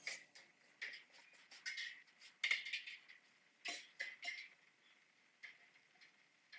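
Light metallic clinks and scrapes as a thin cable is threaded through a homemade ATV's steel tube frame: about a dozen short, irregular sounds, each with a faint ringing.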